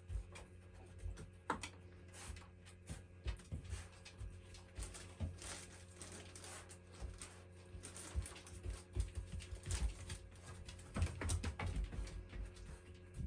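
Irregular light clicks, taps and scuffs of puppies and a cat moving about and pawing on floor mats, thickest about two-thirds of the way through, over a steady low hum.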